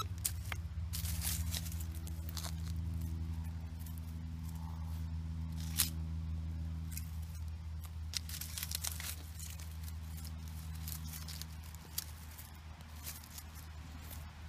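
Dirt and roots scraped and crunched while digging out a metal-detector target, in scattered short scrapes and clicks over a steady low hum.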